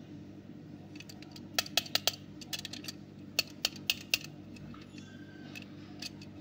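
A small die-cast toy car being handled and turned over in the fingers: a run of sharp clicks and taps, starting about a second in and lasting around three seconds, with a couple more near the end.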